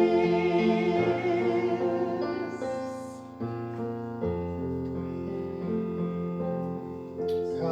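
Worship music on piano or keyboard: slow held chords, with a singing voice over them for the first couple of seconds, then the keyboard alone, softer.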